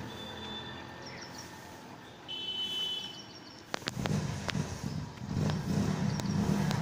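Street ambience: a low traffic hum with a few high chirps and whistle-like tones in the first half, and two sharp clicks just before the middle. A vehicle engine then rumbles steadily, louder, through the last few seconds.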